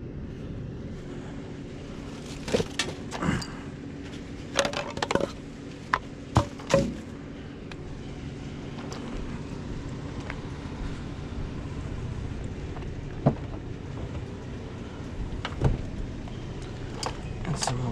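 A vehicle engine idling with a steady low hum, under scattered sharp clicks and knocks that come in small clusters in the first seven seconds, then singly later on.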